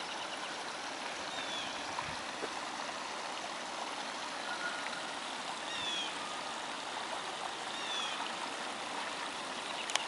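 Small artificial waterfall trickling over stacked stone ledges into a pool: a steady rush of running water. A bird gives a faint, short falling chirp about three times.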